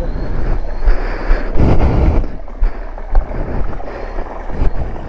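Wind buffeting the microphone, a rushing rumble with a louder gust about one and a half seconds in.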